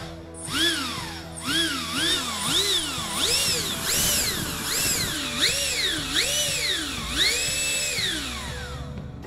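Electric ducted-fan motor whining up and down in repeated throttle blips, each a rising then falling whine, with the last rev held at the top for about a second near the end. Background music plays underneath.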